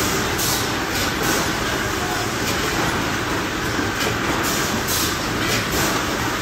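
Steady din of a factory packaging line, with conveyor belts and machinery running and short, sharp hisses repeating every second or so.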